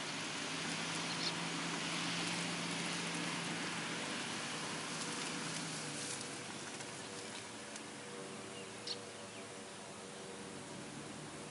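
Pickup truck driving away across a tilled field: engine hum and tyre rumble over loose soil, fading as it goes. Two short high-pitched chirps cut through, one early and one near the end.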